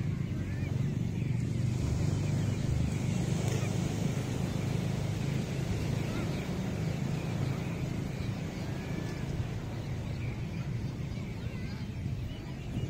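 Ocean surf washing onto a sandy beach: a steady low rush of breaking waves, with a few faint high calls or distant voices above it.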